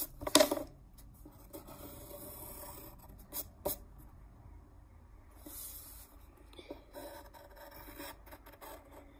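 Pencil scratching on paper in short strokes, with a sharp knock just after the start and a lighter tap a little before four seconds in.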